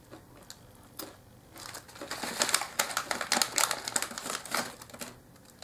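Plastic snack pouch crinkling as it is handled, a dense run of crackles lasting about three seconds from a little under two seconds in, after a single click near the first second.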